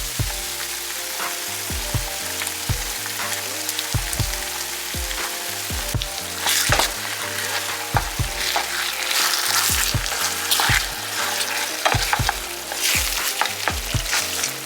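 Tomato sauce and ground beef sizzling and spattering in a pan on high heat, the crackle growing denser about halfway through. Background music with a steady beat plays underneath.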